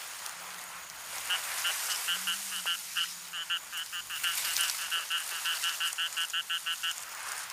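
A frog calling in a long series of short croaking pulses, about four to five a second. The calls start about a second in and stop near the end, over a faint steady hiss of night ambience.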